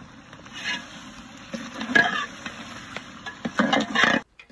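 A ladle stirring and scraping chicken korma in a large metal cooking pot, with the food sizzling as it fries, while the freshly added ginger-garlic paste is mixed in. The stirring strokes come unevenly and bunch up near the end before the sound cuts off abruptly.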